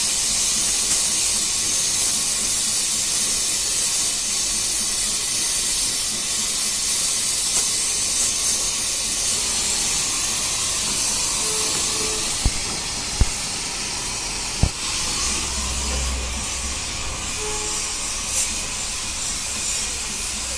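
Welding arc hissing steadily while the broken motorcycle footrest holder is welded, with three sharp knocks about two-thirds of the way through.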